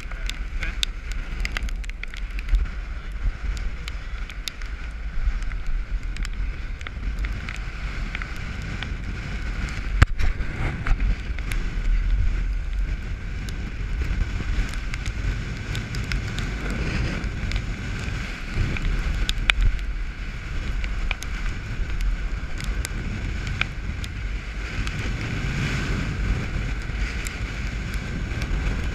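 Gale-force wind buffeting the microphone with waves rushing past a sailboat's hull, and a loose headsail flapping. Sharp snaps and knocks come throughout, the loudest about ten seconds in, over a faint steady high whine.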